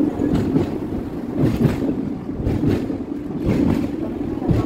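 Hong Kong double-decker tram running along its tracks, heard from on board: a steady low rumble, with wind gusting on the microphone every second or so.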